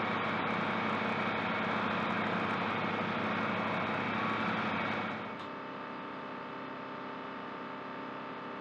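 Steady engine drone of a de-icing truck running, with an even hiss over it. It drops to a quieter, steady level about five seconds in.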